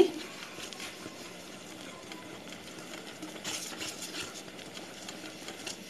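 Wire whisk stirring thick, coarsely ground moong dal batter with a little added water in a stainless steel bowl. The stirring is quiet, with a few slightly louder strokes about three and a half seconds in.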